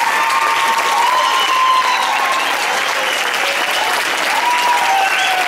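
Audience applauding steadily, with a few drawn-out whoops and cheers over the clapping.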